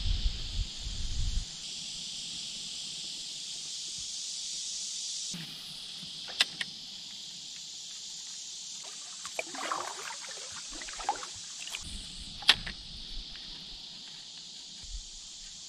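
Canoe being paddled: paddle strokes splashing and dripping in the water, with two sharp knocks about six and twelve seconds in, over a steady high-pitched buzz of insects.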